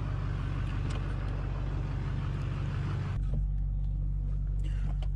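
Road vehicle's engine and road noise heard from inside the cab while driving, a steady low rumble. About three seconds in, the higher hiss drops away abruptly and the low rumble gets deeper.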